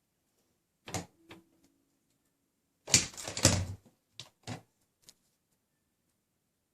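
Scattered light clicks and rustling, with a dense run of clicks about three seconds in and a few single clicks after it.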